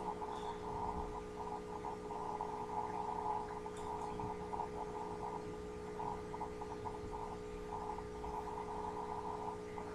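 Faint steady hum made of several steady tones, with a faint irregular chatter that comes and goes over it.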